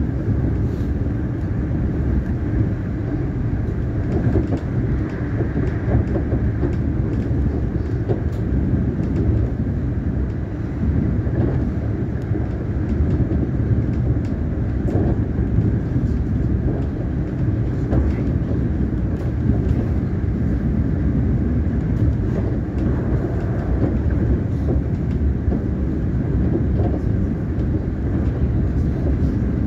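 Siemens Nexas electric train running along the track: a steady low rumble with faint, scattered clicks from the rails.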